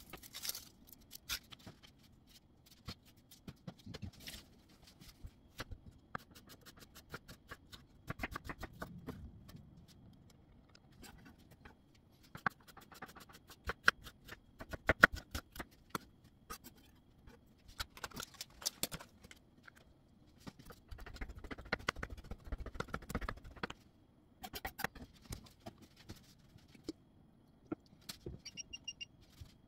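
Chef's knife cutting a peeled onion on a wooden cutting board: irregular knocks of the blade on the board, with several quick runs of rapid chopping.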